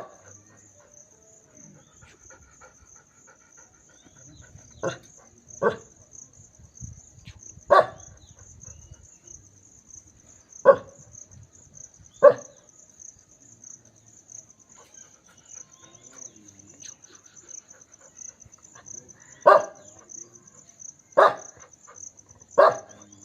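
Village dog barking in single, separate barks every few seconds, with a longer gap in the middle. Insects chirp steadily and high-pitched underneath.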